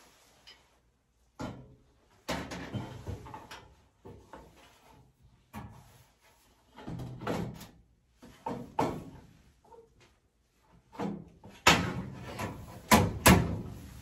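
The sheet-metal front access panel of a Bryant Plus 90 gas furnace being lifted and fitted back onto the cabinet: scattered rattles and clunks, ending in a few hard knocks as it is pressed into place near the end.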